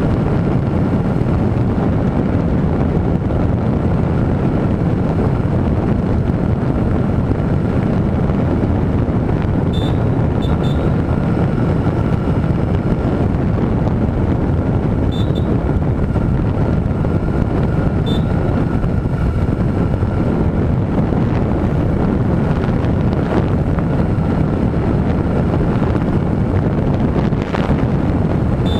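Wind rushing over an on-bike camera microphone as a Honda CB1000R motorcycle cruises steadily, its engine running evenly beneath the wind. A few short, high chirps come through about ten, fifteen and eighteen seconds in.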